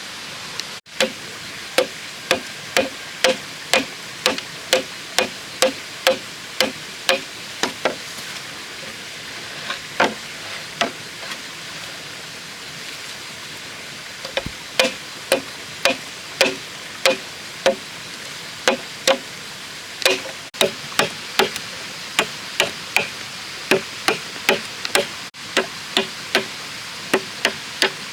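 Rhythmic chopping strikes on bamboo, about two a second, each with a short hollow ring, with a few brief pauses between runs, over a steady background hiss.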